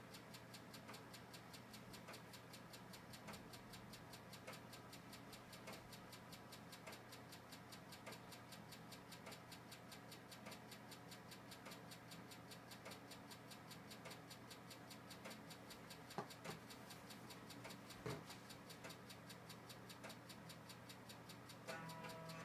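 Old computer running quietly: a steady low hum with fast, regular faint ticking. Two louder clicks come about 16 and 18 seconds in.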